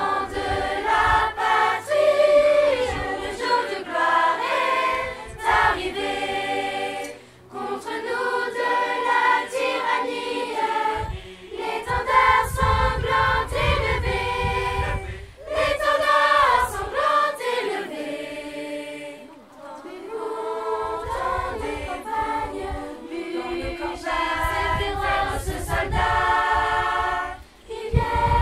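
Children's choir singing together, in phrases of a few seconds separated by short pauses.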